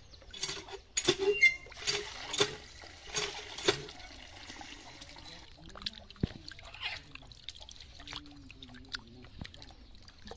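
Water splashing and sloshing in a metal bowl as pieces of snakehead fish are rubbed and washed by hand. It is loudest in the first four seconds, then quieter.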